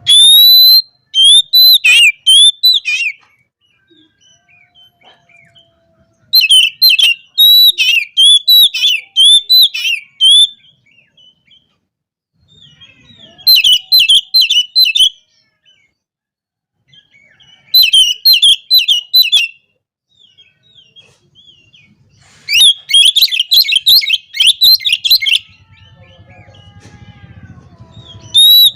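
Oriental magpie-robin in loud, full song, delivering five bursts of fast, varied whistled and warbled phrases a few seconds apart, some notes very high. This is the excited, rival-calling song that kacer keepers play to set other magpie-robins off.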